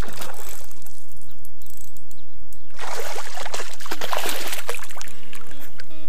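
A hooked bass thrashing and splashing at the surface beside a kayak: a short splash at the start, then a louder bout of splashing about three seconds in that lasts about two seconds.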